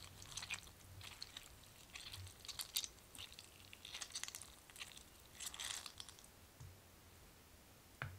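A hand squelching through a bowl of sugared cherries sitting in their juice. The wet squishing comes in several short bursts as the cherries are scooped up.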